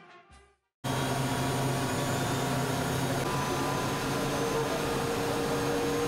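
Steady machine noise of engines running, a dense even hiss with several held tones under it, cutting in abruptly about a second in.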